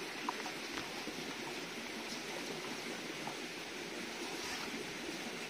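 Steady outdoor background hiss, with a few faint short clicks about a second in.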